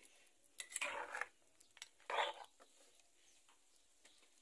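Long metal spoon stirring and scraping through thick sauce in a clay cazuela, in two spells about a second and about two seconds in, with light clicks of metal on clay between.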